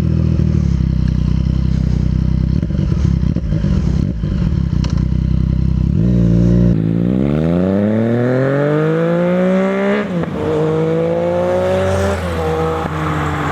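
Vehicle engine running through an aftermarket stainless-steel sport exhaust. It holds a steady deep rumble for about six seconds, then accelerates hard with the note climbing in pitch, drops sharply at a gear change about ten seconds in, climbs again and drops once more near the end.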